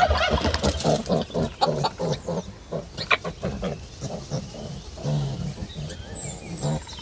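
Pigs grunting in a run of short low grunts, about three a second, with a few faint bird chirps near the end.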